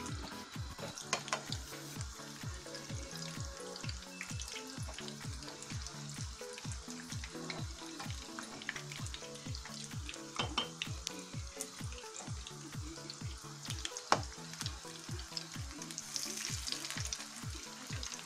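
Pakoras deep-frying in hot oil: a steady sizzle with scattered crackles, under background music with a steady beat of about two to three strokes a second.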